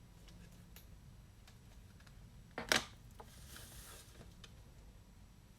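Trading cards being handled: a few faint ticks, one sharp click about two and a half seconds in, then a brief soft rustle of cards sliding.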